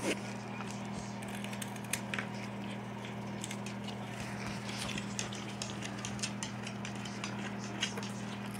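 Cat chewing a crunchy Flamin' Hot Cheeto: irregular short crunches, coming thicker in the second half, over a steady low hum.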